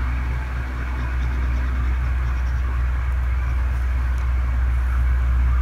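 A steady low hum with a faint hiss over it, growing slightly louder toward the end.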